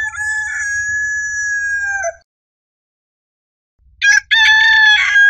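Rooster crowing twice. The first crow ends on a long held note about two seconds in. After a short pause a second crow starts and is still going at the end.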